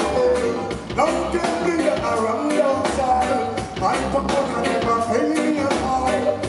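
Live reggae band playing: drum kit and electric bass guitar keeping a steady beat.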